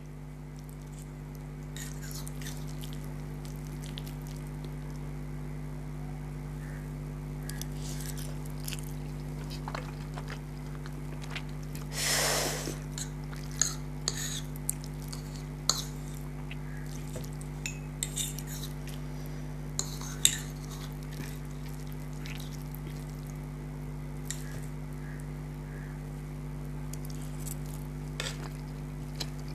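Close-up eating sounds from a person eating instant noodles: scattered clicks and clinks of a utensil against the plate, with one longer noisy sound about twelve seconds in, over a steady low hum.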